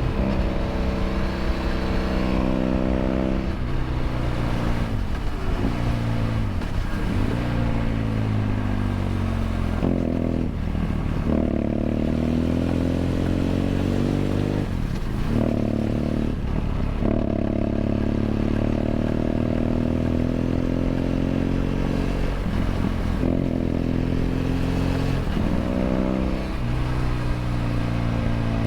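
BMW F800 GS 798 cc parallel-twin engine through a LeoVince LV ONE EVO stainless exhaust, heard from on board while riding. The engine note climbs in pitch through several pulls, broken every few seconds by brief drops where the throttle closes before it picks up again.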